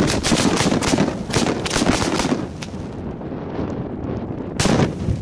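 Firecrackers going off in a rapid series of sharp cracks for about two seconds, then one more bang near the end, over heavy wind buffeting the microphone.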